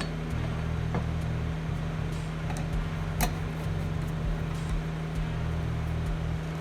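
A steady low hum of a running machine or fan, with a few light clicks and one sharper knock about three seconds in as metal parts are handled.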